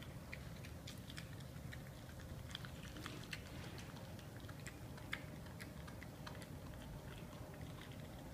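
Pit bull chewing a raw bull pizzle: irregular clicks and smacks of teeth and jaws working the meat, with one sharper click about five seconds in, over a faint low steady hum.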